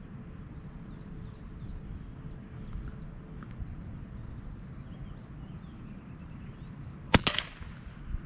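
A single shot from a suppressed Mossberg .22 Long Rifle rifle about seven seconds in: one sharp crack with a brief tail, over a steady low background rumble.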